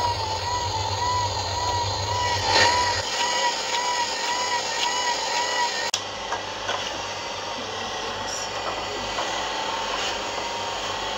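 Car wiper motor driving the beaters of a homemade dough maker, running with a whine that wavers up and down about twice a second as the beaters turn through the dough. There are scraping and light ticking of the beaters in the steel pot, and the whine grows fainter after about three seconds.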